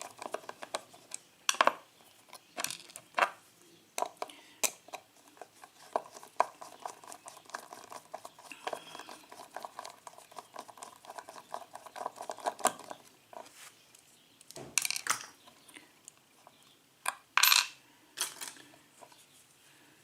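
Small metal clicks, taps and scraping of tools working on a Corbin pin-tumbler lock cylinder as it is taken apart, with a faint metallic ringing through the middle and a few louder knocks near the end.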